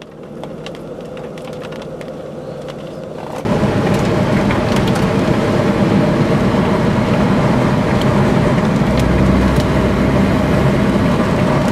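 Steady vehicle running noise, a rushing hum that swells over the first few seconds and then jumps suddenly louder about three and a half seconds in, staying loud and even.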